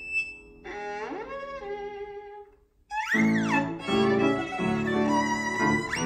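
Violin and grand piano playing a jazz piece, the violin sliding up and down in quick swooping glides. About two and a half seconds in the music breaks off for a moment, then violin and piano come back in louder together.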